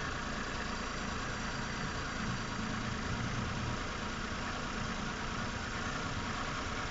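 Hyundai Eon's small three-cylinder petrol engine idling steadily with the air conditioning off and the compressor not engaged. The belts run with no squeak.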